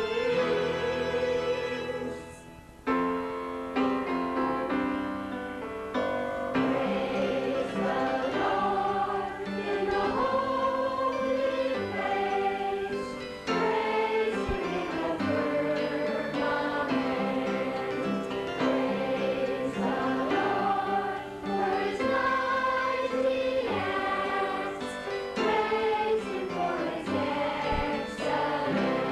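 Youth choir singing a musical number with instrumental accompaniment, with a short break about two seconds in before the singing comes back in.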